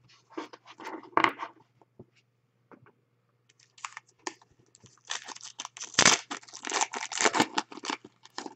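Foil trading-card pack being torn open and its wrapper crinkled, after a little light rustling of cards; the dense crinkling starts about five seconds in, loudest about six seconds in.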